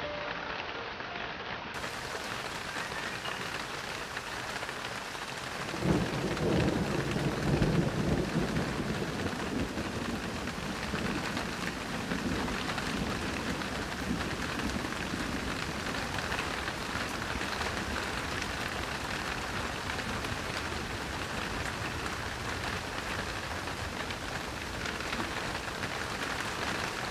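Steady heavy rain, with a thunderclap about six seconds in whose low rumble fades over the next few seconds.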